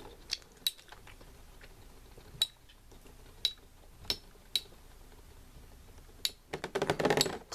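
Two spinning metal Beyblade tops clicking against each other in a plastic stadium: sharp single knocks about once a second, then a quick clatter of rapid clashes near the end as the battle winds down.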